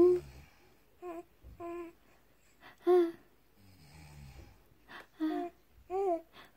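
Young baby cooing: about six short, high 'ooh' sounds spaced a second or so apart, the last ones rising and falling in pitch.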